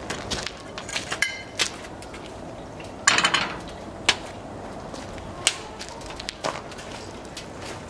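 Metal clinks and a clatter as a frying pan is set on the iron grate of an old gas stove converted to burn wood, followed by a few sharp crackles from the wood fire burning in it.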